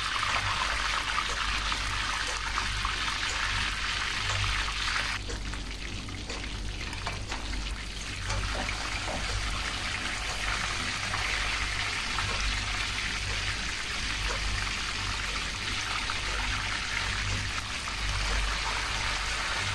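Boiled chicken pieces frying in hot oil in a pan, a steady sizzle as they brown. The sizzle eases off for a few seconds about five seconds in, then picks up again.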